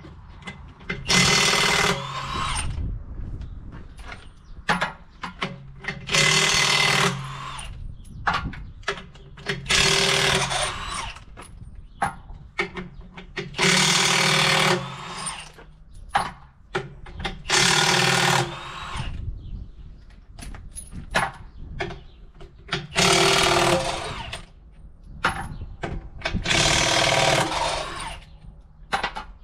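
Impact wrench running the lug nuts off a tractor's dual rear wheel: about seven short runs of a second or so each, roughly four seconds apart, with small clicks and clinks of metal in between.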